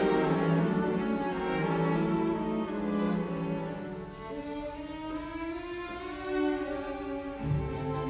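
Background music of bowed strings playing slow, held notes, with a deep bass note coming in near the end.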